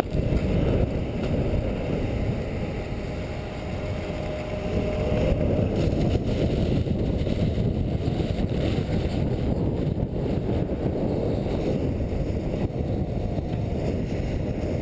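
Steady low rumble of wind and skis on a GoPro's microphone while skiing down through the spray of snowmaking guns.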